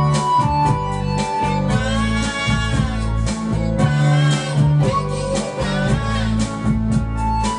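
Background music: guitar playing over a steady bass line.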